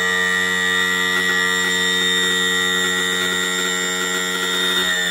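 Electric power trim and tilt motor of a Yamaha 250 hp outboard running the hydraulic pump, a loud, steady buzzing whine that dips a little in pitch near the end. The trim is moving the wrong way, the fault the mechanic is chasing.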